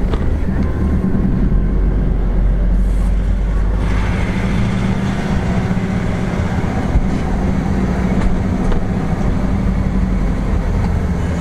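Vehicle engine and road noise heard from inside the car's cabin while driving slowly: a steady low drone, with more hiss coming in from about four seconds in.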